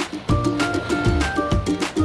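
Background music with a steady beat: Latin-style drums, bass and held melody notes.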